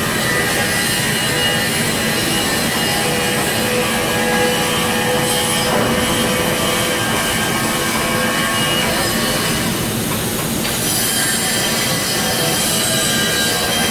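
Steady, loud metalworking-shop machinery noise: a dense running din with high, steady squealing whines over it.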